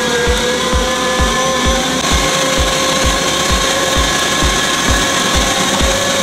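Unold 8810 electric meat grinder running under load as meat is pushed through it: a steady motor whine with a low pulse repeating about twice a second.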